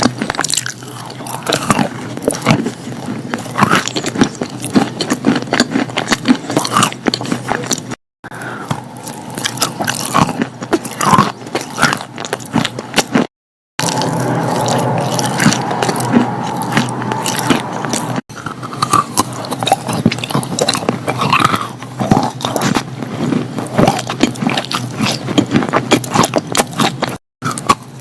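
Close-miked biting, crunching and chewing of wet chalk, with crisp crackly bites and wet scraping, cut abruptly a few times between clips.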